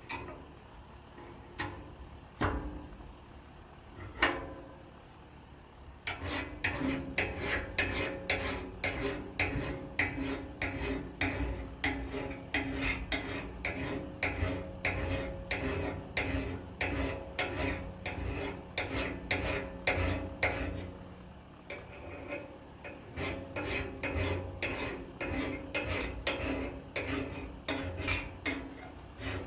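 Hand metal file rasping across a steel blade being sharpened, in quick repeated strokes, about two to three a second. It starts about six seconds in after a few scattered knocks and briefly slackens near two-thirds of the way through.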